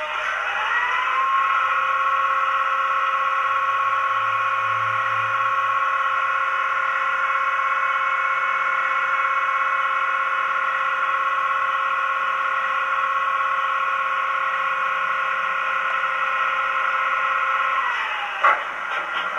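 A model diesel locomotive's DCC sound decoder, through its small speaker, plays the engine start-up of the prototype Lion: a whine rises over about a second to a steady pitch and holds, then drops away near the end, followed by a few clicks.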